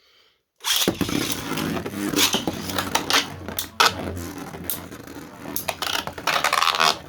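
3D-printed Beyblade spinning tops scraping and clattering against each other in a stadium, a dense run of grinding with sharp clicks that starts suddenly about a second in.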